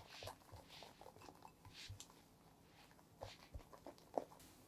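Whisk folding whipped egg-white meringue into egg-yolk batter in a glass bowl: soft, wet squelching and crackling of the foam with light clicks of the whisk against the glass, one sharper click about four seconds in.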